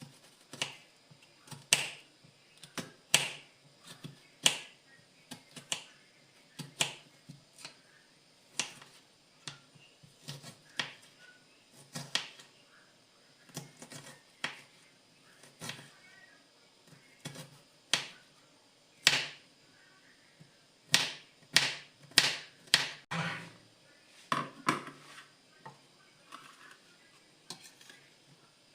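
A series of short, sharp knocks and clicks, irregular, about one or two a second, some louder than others.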